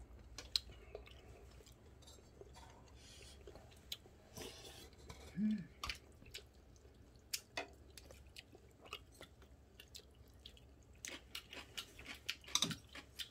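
A person chewing food, with scattered light clicks and taps of utensils against dishes.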